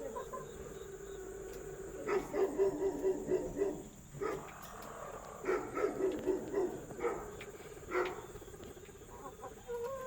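Laying hens clucking in runs of quick pulsed calls, several bouts in a row with short pauses between: the calls hens make when getting ready to lay an egg. A faint steady high-pitched hum runs underneath.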